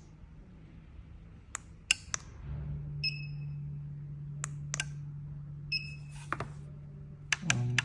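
Sharp clicks, two short high electronic beeps and a steady low hum from a gate or garage-door RF receiver being worked with its remote. A quick run of clicks with a buzz comes near the end.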